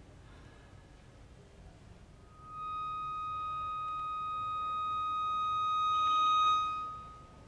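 Chromatic button accordion (bayan) holding a single high note: after a quiet stretch it enters about two seconds in, slowly swells louder under the bellows, then fades away near the end.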